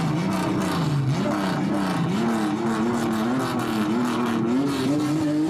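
Nissan Skyline C110 'Kenmeri' engine revved loudly through its exhaust in a rhythmic pattern. The pitch swings up and down in repeated waves, then climbs to higher revs and holds there with small wobbles in the second half.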